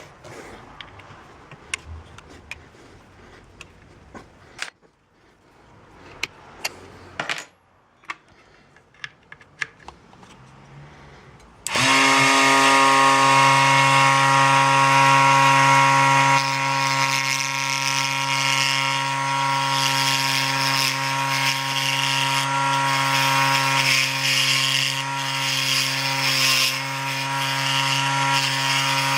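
Scattered clicks and knocks of handling and setting up, then about twelve seconds in a Raitool 80W 24V DC mini lathe switches on suddenly and runs steadily, its motor giving a constant humming whine with a hiss over it.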